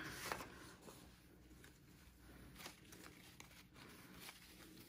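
Near silence, with a few faint soft rustles and taps as a bundle of embroidery floss skeins is gathered up by hand.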